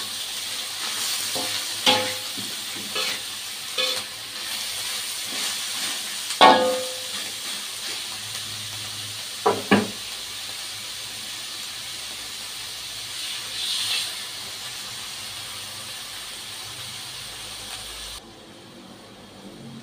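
Shellfish and vegetables sizzling in a hot wok, with a spatula knocking and clanking against the wok several times in the first ten seconds. After that the sizzle runs on steadily until it drops off suddenly near the end.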